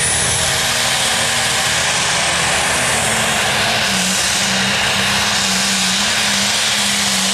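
International 1066 light pro stock tractor's turbocharged diesel engine running flat out under load as it pulls the sled. A high turbo whine climbs to its top in the first half second. The engine note wavers up and down in the second half.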